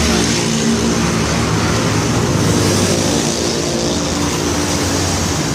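An engine running steadily, with a continuous mechanical noise.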